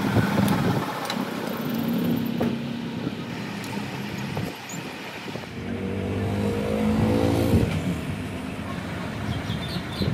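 A metal lathe runs with a steady hum during the first few seconds. Then an engine rises steadily in pitch for about two seconds and falls away, and a few light metallic clicks come near the end.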